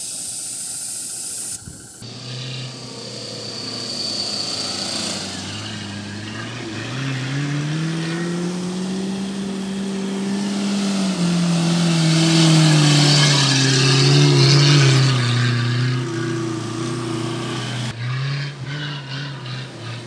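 A steady hiss for about the first second and a half. Then an SUV engine revs hard while driving up a sand dune: its note climbs, holds high around the middle and falls back, with a rush of spinning tyres throwing sand that is loudest a few seconds after the peak. Near the end the sound cuts to a lower, uneven engine note.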